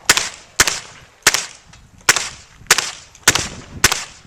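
9mm pistol-caliber carbine firing seven shots in steady succession, about one every 0.6 seconds, each shot trailing off briefly.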